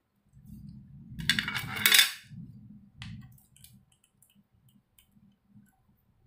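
Computer hardware being handled: low rubbing and knocking, with a clattering, scraping rattle of hard parts lasting about a second, about a second in, then a few light ticks.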